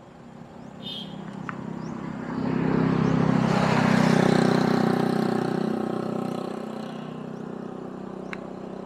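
A motor vehicle passing on the road, with engine and tyre noise swelling over about three seconds, peaking midway, then fading away.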